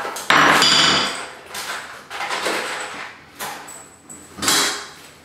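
Tool work on a tiled wall: a run of knocks and scrapes of hand tools and hardware, the longest lasting most of a second near the start, then several shorter ones.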